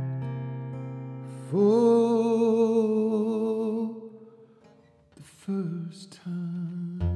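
Solo acoustic guitar and voice: a strummed chord rings out, then a long wordless sung note with vibrato. After a brief near-quiet gap, a few sharp strums come in near the end and the guitar chords pick up again.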